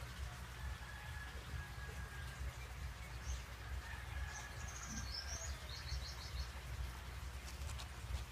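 Faint background bird chirps, with a short rapid trill about five to six seconds in, over a steady low outdoor rumble.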